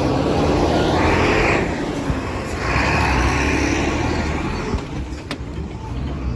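Motor vehicle engine and road noise: a low, steady engine hum under a hiss that swells twice in the first half, as of vehicles passing close by.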